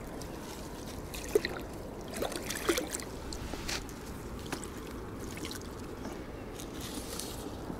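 Water splashing and dripping, with the wet mesh of a landing net being handled, as a carp is freed from the net into shallow water; a few short, scattered splashes over a steady low background.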